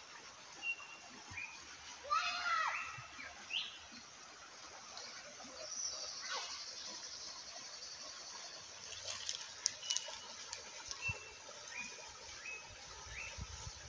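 Shallow forest creek running steadily over stones, with birds calling: short rising chirps every second or so, and a louder, longer call about two seconds in. A few sharp clicks near the ten-second mark.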